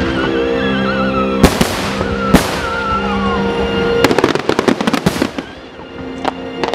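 Fireworks shells bursting over background music: two heavy bangs about a second apart, then a quick run of crackling reports from a cluster of small bursts.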